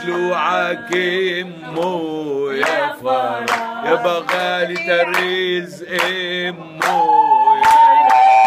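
A man and a woman singing an Arabic folk song together, with hand-clapping keeping the beat. Near the end the voices hold one long high note.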